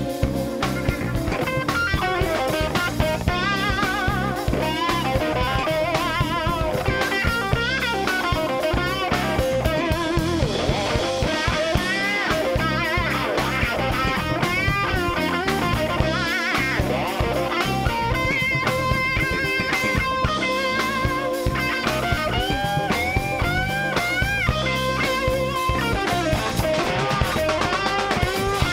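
Electric blues guitar solo on a double-neck electric guitar, full of bent notes and vibrato, over a live band with drums.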